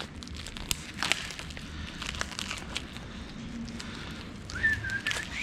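Plastic packaging crinkling and crackling in irregular clicks as a propane hose line is unwrapped by hand. A brief high chirp near the end.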